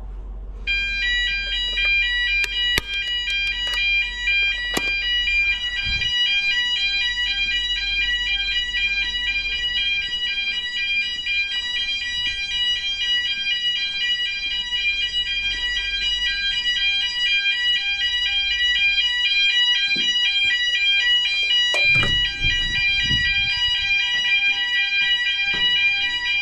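Building fire alarm sounders going off in a weekly test, set off from a manual call point. The high electronic tone comes in a little under a second in and then keeps going loud and steady, its pitch switching back and forth in a rapid pulsing pattern.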